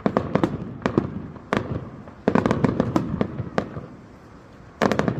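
Aerial fireworks bursting: a rapid, irregular series of sharp bangs and pops, with a dense cluster about two and a half seconds in and another near the end.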